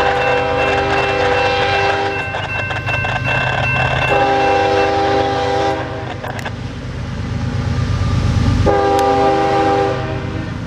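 Freight locomotive's air horn sounding three long chord blasts for grade crossings, one held over from before, one about four seconds in and one near the end, over the low rumble of the approaching train.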